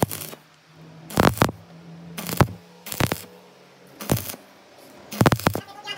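Stick-welding arc on a brake caliper pin spun in a lathe chuck, crackling in short bursts about once a second over a low steady hum, as the undersized pin is built up with weld metal.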